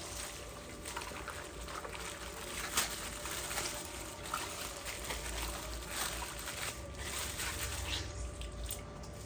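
Water trickling and sloshing from a burst plastic water bag as it is handled, with scattered sharp crinkles and clicks of plastic.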